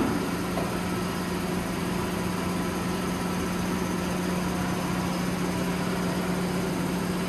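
Aida NC1-110 110-ton gap-frame punch press running idle. Its 10 HP main motor and flywheel give a steady hum with one constant low tone, and no press strokes are heard.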